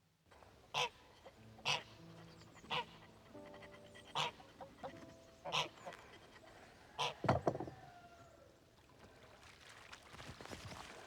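Repeated honking calls of farmyard fowl, about eight short calls roughly a second apart, the last few close together, over quiet music.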